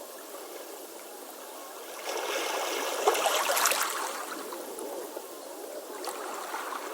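Beach waves washing on the shore: a steady wash, with one wave surging in about two seconds in, loudest around the middle, then easing back.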